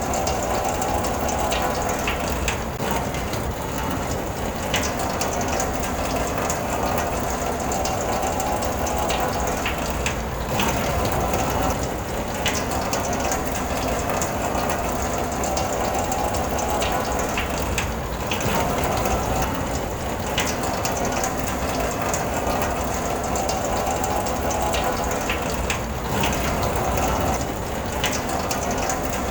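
Steady rain on a car heard from inside the cabin: a continuous hiss with many sharp ticks of drops hitting the roof and glass.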